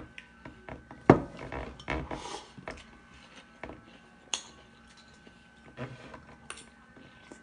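A metal fork clinks and scrapes against a ceramic bowl of spaghetti, with eating noises close to the microphone. There are a handful of separate clicks and knocks, the loudest about a second in.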